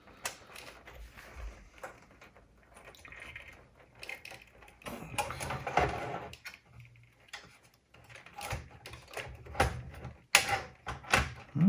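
Irregular clicks, knocks and scraping as a cassette deck's tape transport mechanism is handled and fitted back into its chassis, with a longer run of scraping about five seconds in.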